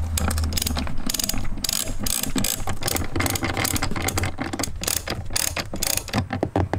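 Hand ratchet clicking in quick runs as the T20 Torx screws holding an underseat subwoofer are backed out. A low hum sounds in the first second.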